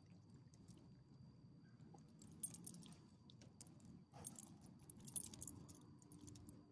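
Small dogs' metal collar tags and leash hardware jingling in a few short bursts as the dogs move, against a quiet background.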